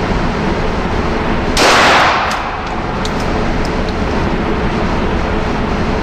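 A single 9mm pistol shot from a Glock 34, about a second and a half in, dying away quickly over a steady background hiss, followed by a few faint ticks.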